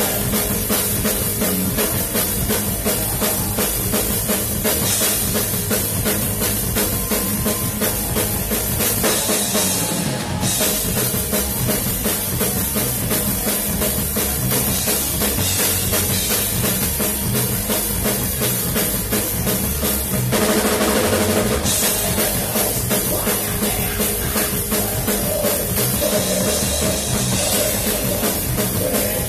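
Heavy metal band playing live, heard from right beside the drummer: the drum kit's bass drum, snare and cymbals are loudest over the rest of the band. Recorded on a phone, so the sound is raw and harsh.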